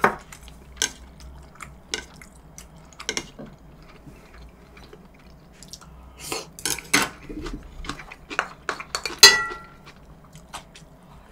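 Cutlery clinking and scraping against dishes during eating: a scattered series of sharp clinks, the loudest about nine seconds in, ringing briefly.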